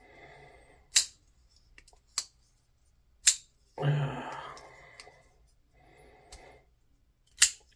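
PMP User 2 titanium folding knife being worked open and shut by its front flipper: several sharp clicks a second or more apart as the blade snaps into place, the loudest near the end.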